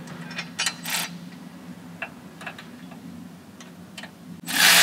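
Scattered, irregular metallic clicks from a socket ratchet being worked on 13 mm bolts. Near the end a power tool starts up and runs loudly and steadily.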